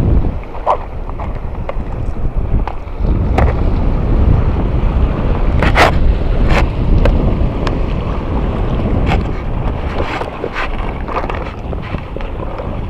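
Wind buffeting the microphone over small waves lapping on the reef rocks, with scattered sharp clicks and knocks as a plastic tackle box is handled; the loudest clicks come about six seconds in.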